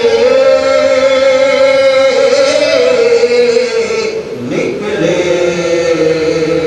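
Devotional chanting by a single voice, holding long, slowly wavering notes with a short breath about four and a half seconds in.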